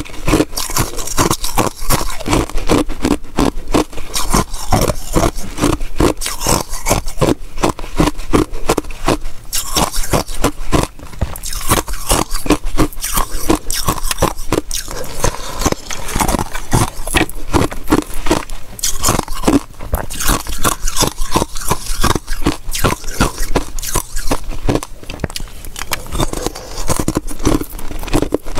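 Frozen basil-seed ice cubes crunching and cracking as they are bitten, chewed and broken off a block by hand, close to a clip-on microphone: a dense, continuous run of sharp cracks and crunches.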